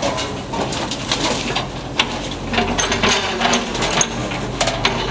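Building being demolished: irregular cracks, knocks and crashes of breaking wood and debris over a steady low hum.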